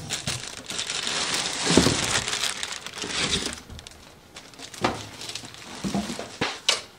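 Plastic wrapping crinkling and rustling around a stainless steel litter pan as it is handled, for about three and a half seconds. After that it goes quieter, with a few short knocks.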